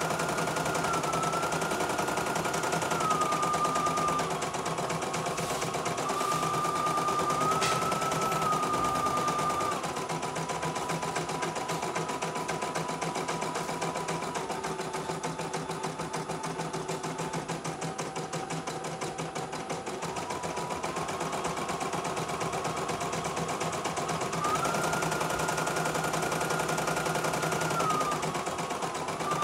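CNY E900 portable embroidery machine running, stitching a design: a rapid, even chatter of needle strokes under a motor whine that steps up and down in pitch several times.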